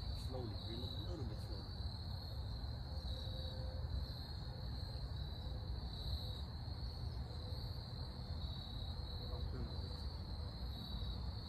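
Insects, such as crickets, chirring steadily in one continuous high-pitched trill that pulses slightly, over a low outdoor rumble.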